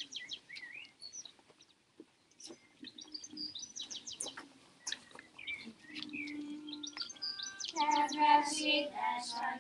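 Small birds chirping, then about eight seconds in a group of children starts singing a Hungarian folk song, the loudest sound here.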